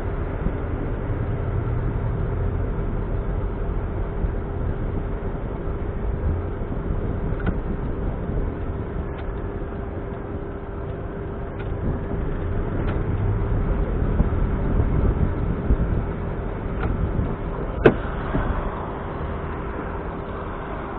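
Smart Roadster's turbocharged three-cylinder engine running under way with road noise, its rumble swelling and easing, and a steady whine running through it. A few light ticks and one sharp knock near the end.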